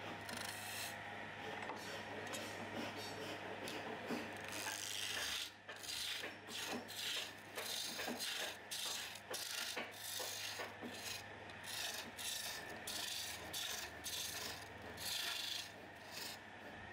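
A hand-held turning tool cutting into a spinning wooden table leg on a wood lathe: a run of short scraping cuts in quick succession over the lathe motor's steady low hum.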